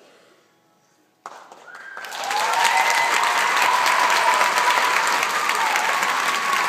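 Audience applause after the music ends: near silence, then clapping breaks out about a second in and swells into steady applause. One long, high-pitched held note, a cheer from the crowd, sounds above the clapping.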